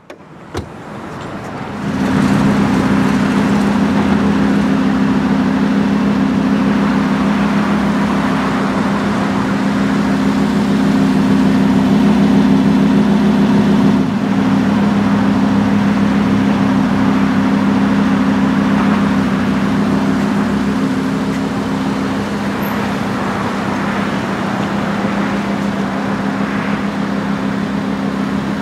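Lamborghini Huracán's 5.2-litre V10 engine running steadily at a constant speed, a low drone that comes in about two seconds in.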